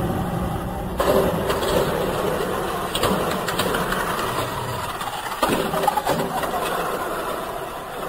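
Tamiya Mini 4WD cars whirring steadily around the track on their small electric motors, with a few sharp clacks.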